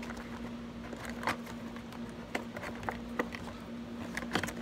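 Scattered light clicks and rustles of a doll's plastic and cardboard packaging being handled as the doll is taken out, over a steady faint hum.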